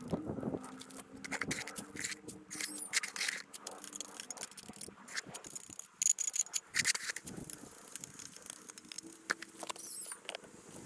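Shovel digging into earth: a run of quick, irregular scrapes and clinks of the blade, with the sharpest ones about six seconds in.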